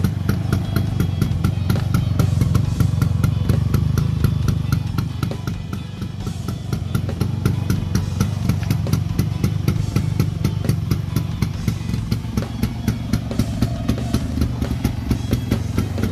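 A 1962 Vespa VBB scooter's single-cylinder two-stroke engine idling steadily and healthily: an even, rapid beat over a low drone.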